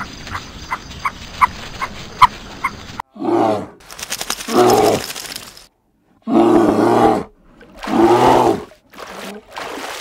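Small birds chirping faintly about twice a second for the first three seconds. Then a large animal gives four loud, deep roars of about a second each, followed by two fainter ones near the end.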